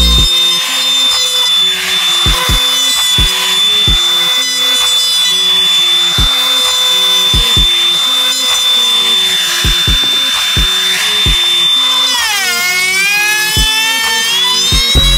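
Handheld trim router running at speed with a steady high whine as it routes the lip into a wooden speaker ring. Its pitch dips sharply near the end, then climbs back. Background music with a beat plays underneath.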